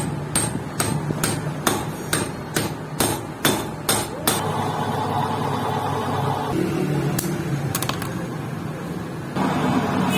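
A hammer striking, about ten evenly spaced blows at a little over two a second, which then stop, leaving a steady workshop background. A louder steady noise comes in near the end.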